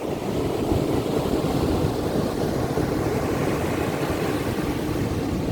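Strong ocean waves breaking, a steady low rumble of surf with a wash of hiss that swells through the middle.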